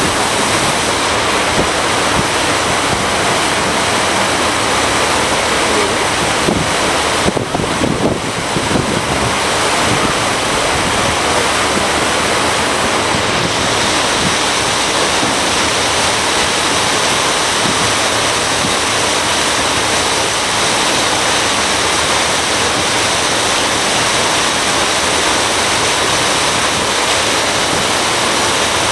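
Steady rushing noise of wind and water from a moving boat, with a brief wobble in the noise about seven seconds in.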